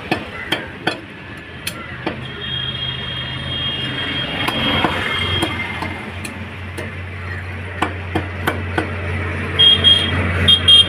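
Butcher's cleaver chopping quail on a cutting block: sharp, irregular chops, several in quick succession near the start and again later on, over a steady hum of street traffic.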